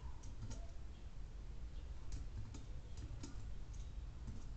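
Typing on a computer keyboard: a few irregular, scattered keystrokes, quieter than the surrounding speech.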